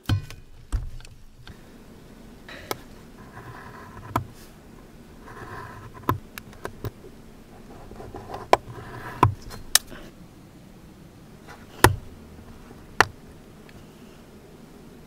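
Hand tools being handled on a workbench: scattered sharp taps and clicks, with a few short scraping or rubbing sounds between them. The loudest clicks come near the end.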